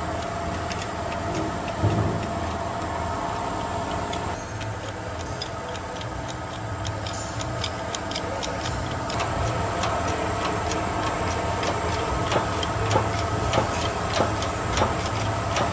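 Hydraulic shop press being worked to push a new wheel bearing into a hub carrier: light, irregular ticking clicks over a steady mechanical hum.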